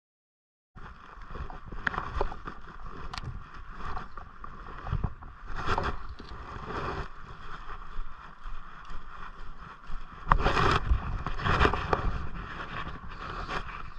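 River water running around a wading angler, heard through a body-worn action camera's microphone, with several louder gusts of wind or handling bumps on the microphone. It starts about a second in, after a silent opening.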